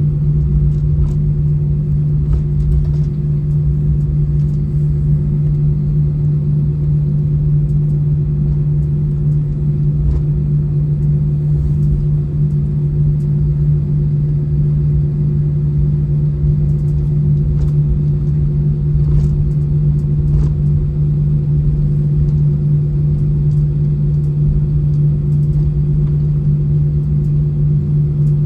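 Steady low hum inside an Airbus A320 cabin while taxiing after landing: the engines at idle and the cabin air conditioning, with a few faint clicks and rattles.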